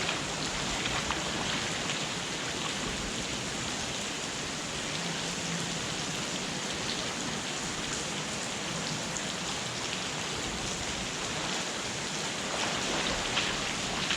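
Steady hiss of rushing water, even and unbroken, with a few faint ticks near the end.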